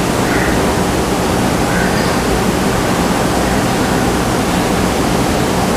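Steady, even hiss of background noise, loud and unchanging, with no distinct events.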